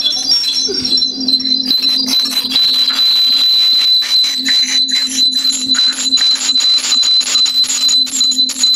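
Music or sound-design track: a steady high-pitched tone over a low steady hum, with irregular clicks and ticks throughout.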